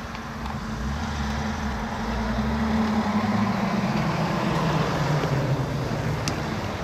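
A motor vehicle's engine running with a steady low hum that gets louder about three seconds in and drops slightly in pitch past the middle.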